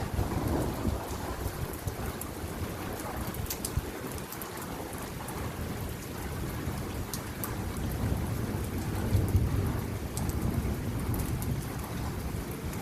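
Rain falling steadily on a rooftop, with sharp drop ticks, under a low rumble of thunder that swells about eight to ten seconds in.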